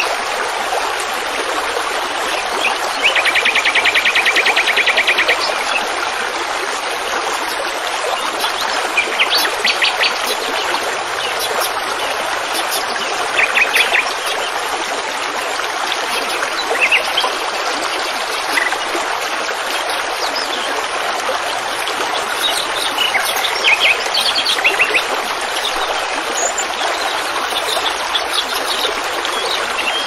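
Small songbirds singing over the steady rush of running water, like a stream. A rapid trilled phrase comes about three seconds in, and short bursts of chirps follow now and then.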